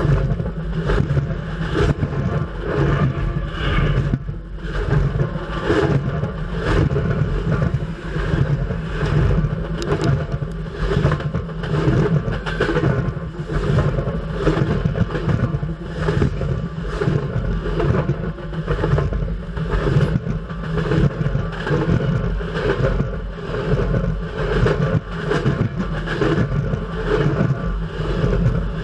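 CN freight train rolling directly overhead, heard from beneath it between the rails: a steady heavy rumble of steel wheels on rail with a constant run of clicks and clatter as the wheelsets go by.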